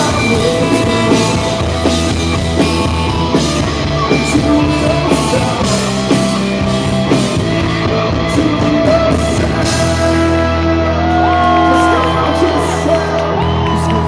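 A live rock band plays with singing, amplified in a concert hall. The drum strikes thin out about halfway, leaving held chords and sliding high notes ringing on.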